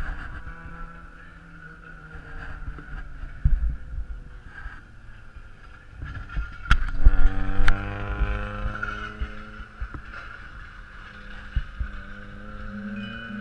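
Race car engine lapping a short oval track, its note climbing in pitch as the car accelerates out of the turn about halfway through. Low thumps of wind hit the microphone.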